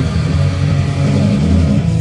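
Rock music with guitar, played loud and steady.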